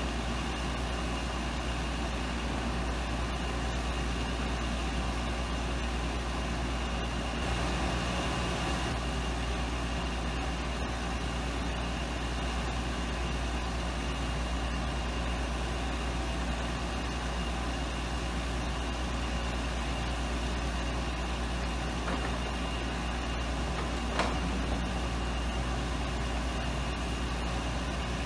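Delivery truck idling, a steady engine hum with a strong low drone. Near the end comes a single sharp knock.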